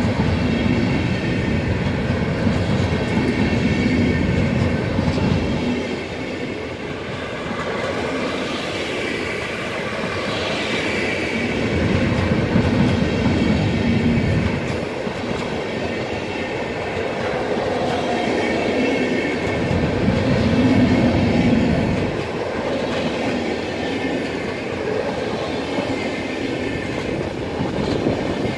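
Euro-Express passenger coaches rushing through a station without stopping: a steady rush and rumble of steel wheels on rail with clickety-clack, the rumble swelling and fading several times as the coaches go by.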